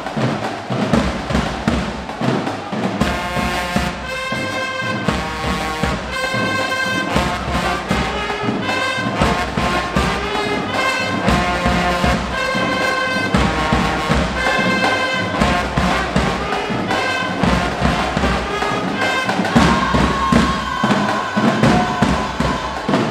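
Show-style marching band playing: trumpets, trombones, sousaphone, saxophones and clarinets sounding held chords over snare and bass drum beats, with the horns coming in strongly a few seconds in.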